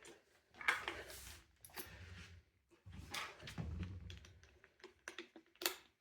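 Quiet handling noise of a metal cabinet handle being fitted to a drilled kitchen cabinet door: soft rustles and scrapes, then a few light clicks near the end.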